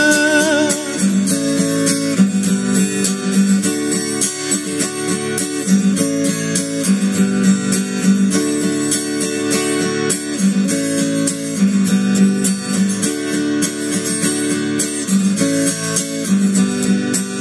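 Acoustic guitar strummed in a steady rhythm, repeating a D–A–G–D chord progression as an instrumental ending. The last held sung note fades out in the first second.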